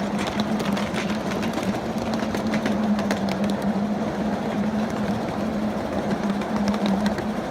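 A long ride-on live-steam train running on small-gauge track: a steady hum with a stream of light, irregular clicks, as of many car wheels passing over the rails.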